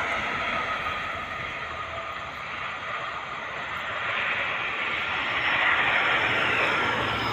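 Traffic passing on a concrete toll road: a steady rush of tyres and engines that eases off about two seconds in and builds again toward the end.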